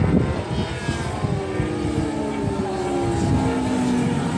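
Propellers of the camera aircraft running steadily, with several tones that slowly slide down in pitch.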